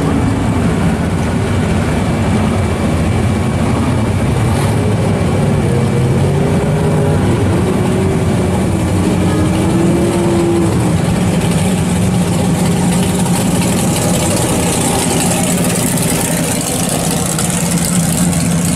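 Loud drag-car engines idling as the cars creep along at low speed, with one engine's pitch wavering up and down partway through.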